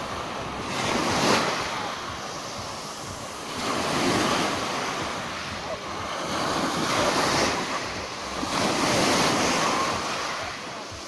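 Small Black Sea waves breaking and washing up over a shingle beach of pebbles, the surf swelling and easing about every two to three seconds.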